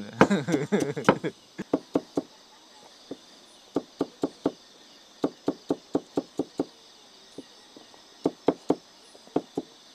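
Spices being chopped with a knife on a cutting board: sharp knocks in short runs of a few strokes, about two to three a second, with pauses between runs. Crickets chirp steadily in the background.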